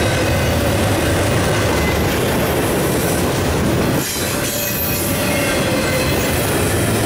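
Double-stack intermodal well cars rolling past on steel wheels and rail: a loud, steady rumble and rattle with a thin, steady wheel squeal over it. The sound dips briefly about four seconds in.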